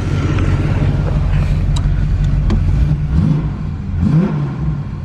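Chevrolet Camaro's upgraded crate engine with headers running, a steady healthy-sounding idle. About three seconds in it is revved briefly twice, the pitch rising and falling each time.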